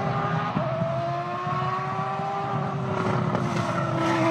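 Race car engine sound effect, a high-revving engine giving a steady whine that shifts slightly in pitch about half a second in.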